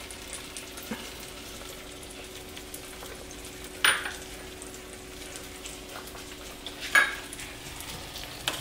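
Eggs and tomatoes frying in a nonstick pan, a low steady sizzle with a faint hum under it. Two sharp knocks come about four and seven seconds in, and a spatula works in the pan near the end.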